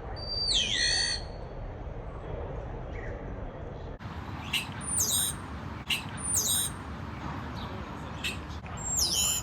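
European starling giving four loud down-slurred whistles, each sliding quickly downward in pitch, spaced a few seconds apart, with a few short sharp clicks in between.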